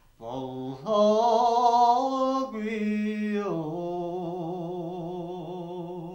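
A man singing alone, unaccompanied, in long held notes with a wavering vibrato; about three and a half seconds in he drops to a lower note, holds it and lets it fade near the end.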